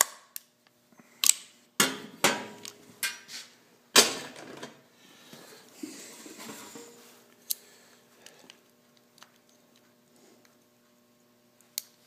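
Sharp metal clicks and clanks of locking pliers working on a small-engine carburetor over a metal pan, about eight hard knocks in the first four seconds and one more a little past the middle. A soft rubbing sound of a rag wiping the part comes between them.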